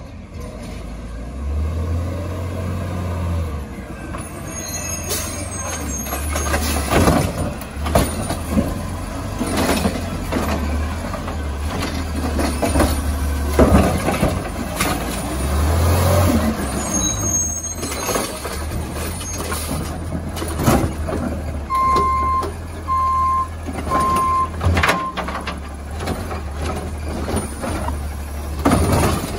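Recycling collection truck working its route: the engine runs steadily under repeated clattering knocks and crashes of recyclables being dumped into the truck. Late on, four short backup beeps sound about a second apart.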